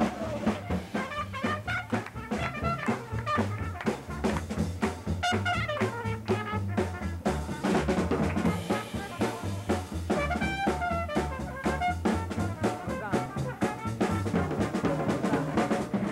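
Small live jazz band playing a brass tune, with a trombone over a drum kit keeping a steady beat.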